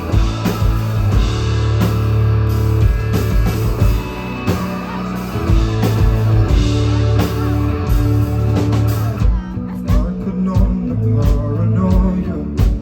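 Live rock band playing an instrumental passage between vocal lines, with drums, bass and electric guitar. About nine seconds in, the cymbal wash drops out, leaving sparser drum hits over the bass and guitar.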